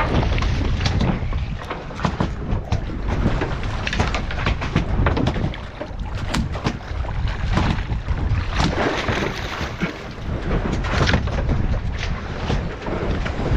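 Wind buffeting the microphone and water washing against a fishing boat's hull, with scattered knocks and clicks throughout.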